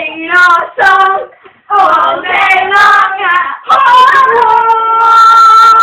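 A high voice singing in short phrases with brief breaks, then holding one long steady note near the end.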